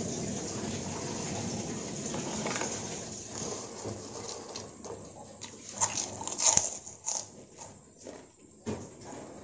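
A person eating fried rice vermicelli close to the microphone: slurping and chewing the noodles, with a cluster of sharp smacks and clicks just past the middle.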